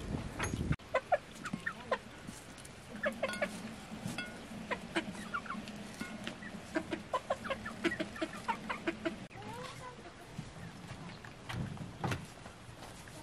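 Domestic hens clucking, a long irregular run of short clucks. A single knock comes near the end.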